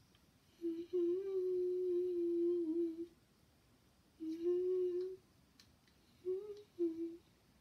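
A child humming with the mouth closed, steady and mostly on one note, in short phrases: one long held note, a shorter one, then two quick ones near the end.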